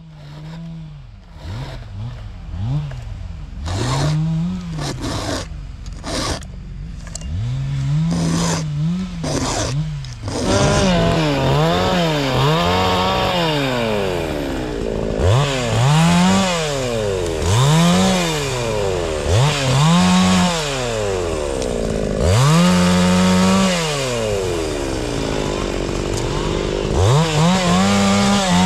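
Two-stroke chainsaw revving up and down over and over, each rev a rise and fall in pitch. It gets fuller and louder about ten seconds in.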